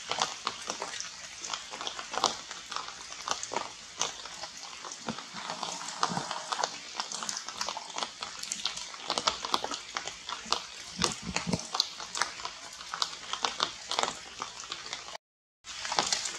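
Water dripping and pattering on rain-soaked leaves, a dense irregular crackle of small ticks. A few short low sounds come through about six and eleven seconds in, and the sound cuts out for a moment near the end.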